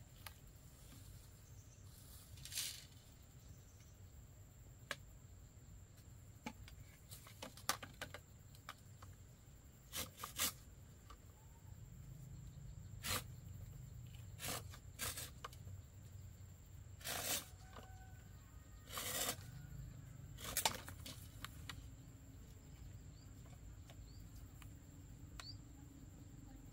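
Knife cutting and shaving a green bamboo pole: scattered sharp clicks and short scraping strokes at irregular intervals.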